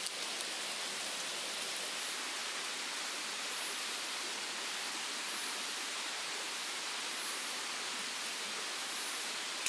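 Steady, dense hiss of a night insect chorus, with one high-pitched insect call repeating about every second and a half.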